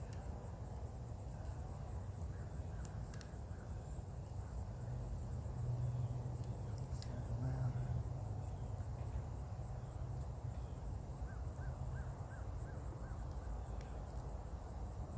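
Insects trilling steadily in a high, evenly pulsed chirp, over a low rumble that swells briefly midway, with a few faint clicks.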